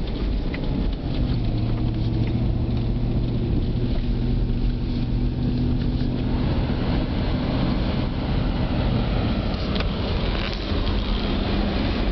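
Car driving on a snow-covered road, heard from inside the cabin: a steady engine hum under a hiss of tyre and road noise. The hiss grows a little stronger about halfway through.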